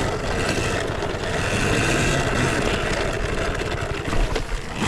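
Steady, loud rush of off-road vehicle and wind noise, with a low rumble underneath.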